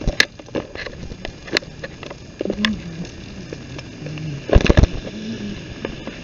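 Handling noise from a handheld camera being jostled: scattered sharp clicks, then a brief cluster of loud thumps about four and a half seconds in, over a steady hiss.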